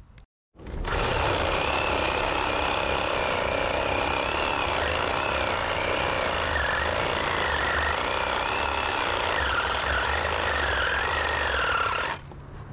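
Small handheld power cutting tool running in thick brush, its whine wavering up and down as the load changes. It starts about a second in and cuts off abruptly near the end.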